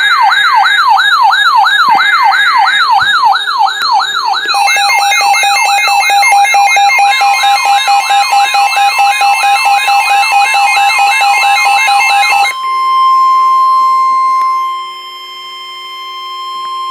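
Electronic siren wailing up and down rapidly, about three sweeps a second, joined about four seconds in by further steady and alternating alarm tones. About twelve seconds in, these give way to one steady high tone, the weather-radio warning alarm tone that opens an emergency alert. It drops in level near the end and then cuts off.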